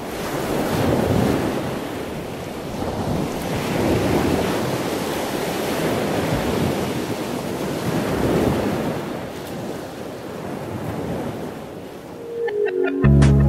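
Ocean surf washing in and out, swelling and fading every few seconds. Music comes in near the end with a deep bass note and plucked notes, louder than the surf.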